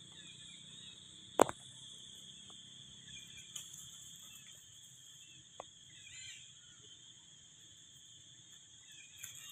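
Insects chirring in a steady, high-pitched drone. A single sharp click about one and a half seconds in is the loudest sound, with a couple of fainter ticks later.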